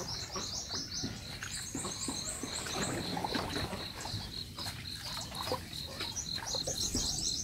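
Water splashing and light knocks from a small boat being worked on the water. Over it runs a rapid, high, repeated chirping.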